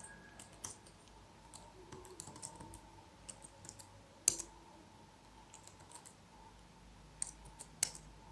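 Computer keyboard being typed on, with faint irregular keystrokes and one sharper keystroke about four seconds in.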